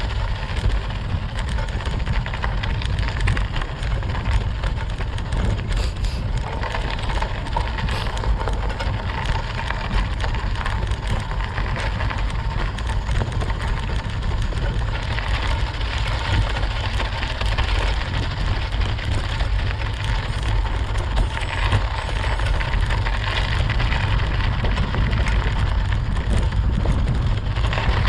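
Mountain bike tyres crackling and crunching steadily over snow, with wind rumbling on the microphone underneath.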